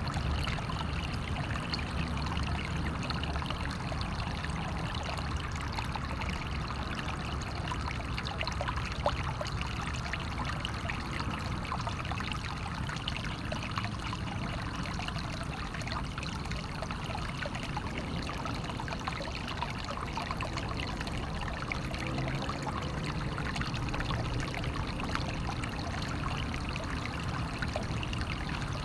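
Water flowing and splashing steadily, a natural stream trickling and pouring over stones.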